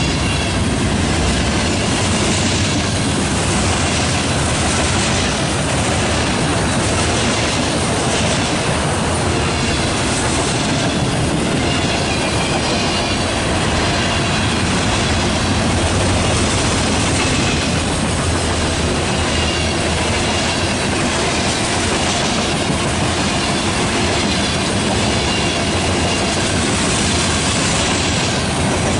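Freight cars of a long mixed freight train rolling past close by: a steady, loud rumble of steel wheels on rail with clickety-clack over the rail joints, and a faint high wheel squeal at times.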